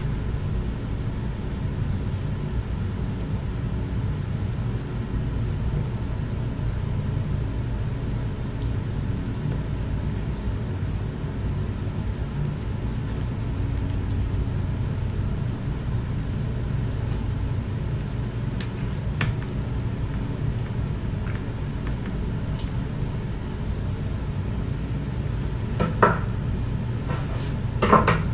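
A steady low mechanical hum, with a few faint clicks, and near the end two sharp knocks of a kitchen knife striking a wooden cutting board.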